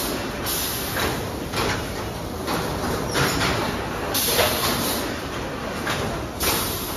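Yarn-cone packing and palletizing line running: a steady mechanical noise, with a few short knocks and surges from the moving machinery.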